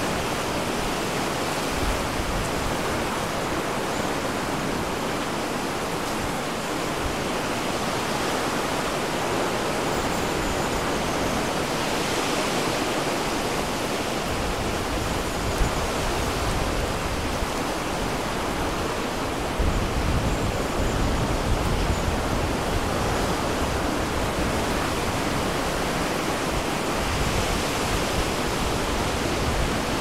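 Ocean surf breaking on a beach: a steady wash of noise, with deep low rumbles coming and going, strongest from about two-thirds of the way through.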